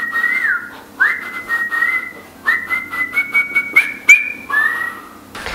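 A person whistling a tune in four or five short phrases about a second each, with pauses between them, and faint clicks alongside.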